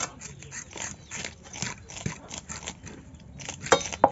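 Pieces of catla fish being cut on an upright curved boti blade and handled wet: a run of irregular scraping and squelching clicks, with two louder sharp clicks near the end.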